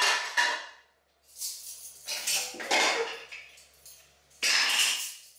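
Kitchen clatter of plates and utensils: two ringing clinks at the start, then a run of clanks and scrapes against cookware, the loudest clatter about four and a half seconds in.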